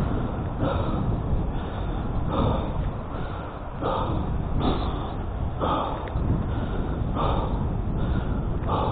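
A person breathing hard, a loud breath about every second, over a steady rumble of wind on the microphone.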